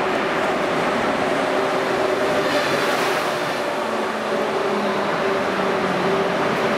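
Electric locomotive hauling passenger coaches into the platform and passing close by, wheels rolling on the rails under a steady electric whine. It is brightest as the locomotive goes past about three seconds in.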